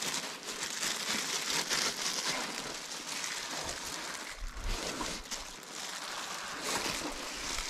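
Steady dry rustling and crinkling of disposable absorbent pads and salt being handled as whitefish fillets are salted, with a soft low thump about four and a half seconds in.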